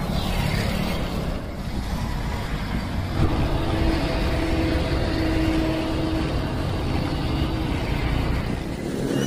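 Steady road-vehicle noise: a low engine and traffic rumble, with a faint held tone from about three seconds in.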